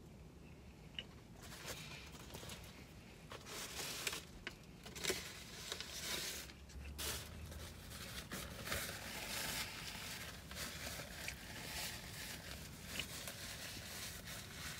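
Paper burger wrapper being handled and folded, rustling and crinkling irregularly, starting about a second and a half in.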